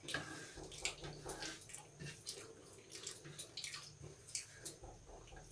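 Faint wet eating sounds: fingers mixing and picking up rice on plastic plates, with chewing and lip-smacking, as an irregular scatter of small clicks and squelches.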